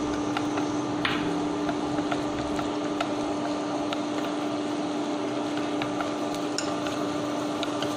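Minced lemongrass frying in oil in a stainless-steel pot, with wooden chopsticks stirring and clicking against the pot a few times. Under it runs a steady hum from the induction cooktop.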